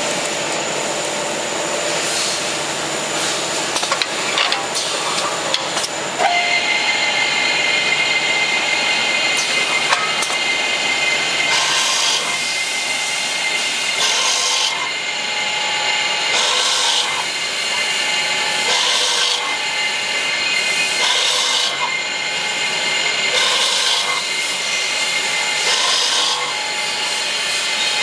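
An automatic CNC brake lining drilling machine running, its spindle giving a steady high whine from about six seconds in. A short burst of harsher cutting noise comes about every two and a half seconds as the drill bores each hole through the brake lining; a few knocks come before the whine starts.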